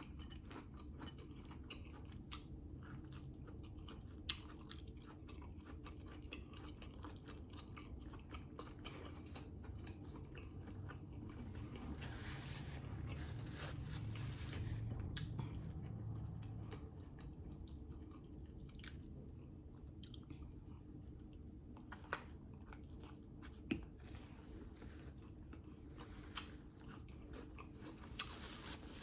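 Close-miked chewing and biting of a sausage hot dog topped with grinder salad: steady wet mouth sounds with many small ticks, and a few sharper clicks scattered through.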